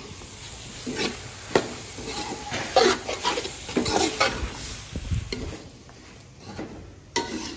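Steel spatula stirring and scraping around a large aluminium pot, mixing chopped green chillies and coriander into a potato curry, with irregular knocks of metal on metal.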